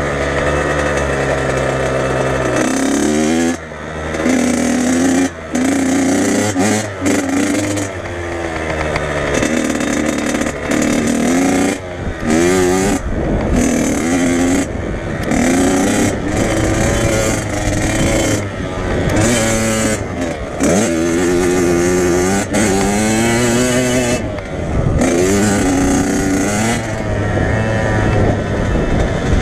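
Dirt bike engine revving hard and easing off over and over as the rider works the throttle, the engine note climbing and falling every second or two, with a few short, sudden cuts.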